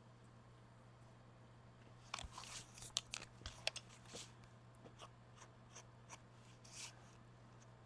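Faint handling of paper and collage materials on a tabletop: scattered crinkles, light taps and scrapes starting about two seconds in, over a low steady hum.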